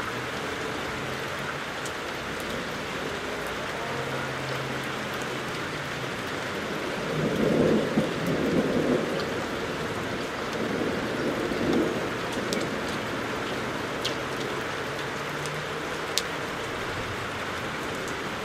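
Steady rain falling, with a rumble of thunder for several seconds in the middle and a couple of sharp drip ticks near the end.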